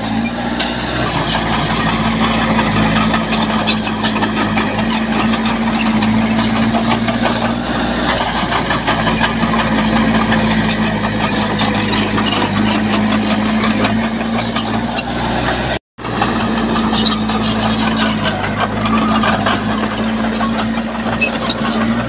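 Diesel engine of heavy earthmoving machinery running steadily under work, with faint scattered clanks over it. The sound cuts out completely for a split second about 16 seconds in.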